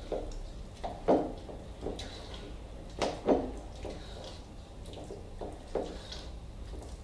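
A spoon stirring a thick tahini and lemon juice mixture in a bowl as water is worked in: a series of short, irregular wet squelches and light knocks against the bowl.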